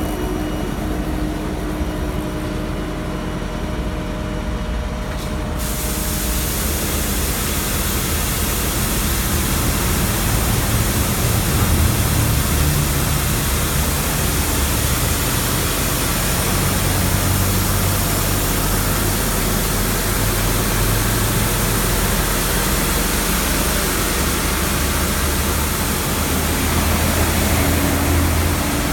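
A large vehicle's engine running with a low hum, joined about five seconds in by a loud steady hiss that lasts to the end.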